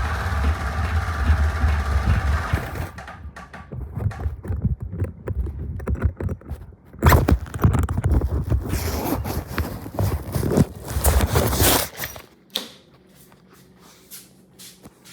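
Lawnmower engine running, then joined by irregular knocks and clatter from about four seconds in; the engine cuts off suddenly about twelve seconds in, leaving only faint background noise.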